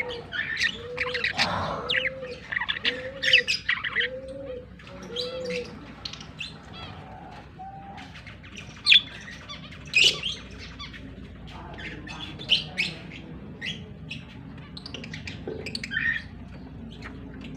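Budgerigars chirping and squawking in a run of short, sharp calls. During the first five seconds a low arched call repeats six times, about once a second.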